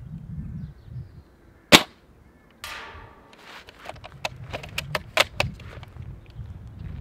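A spring-powered bolt-action airsoft sniper rifle (a DIY-built SSG96) fires once with a sharp crack, a little under two seconds in. It is followed by a short scraping sound and a quick run of sharp clicks as the bolt is cycled to re-cock it, over a low wind rumble.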